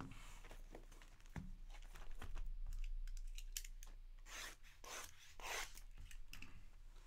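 Packaging on sealed trading-card boxes being torn and handled, with three short ripping sounds about four and a half to five and a half seconds in, among lighter rustles and taps.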